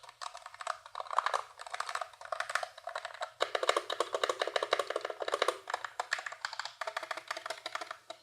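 Keys of an AKKO MonsGeek FUN60 60% magnetic-switch keyboard being pressed in quick succession, a dense run of keystroke clicks as the new keyboard's linear switches are tried out.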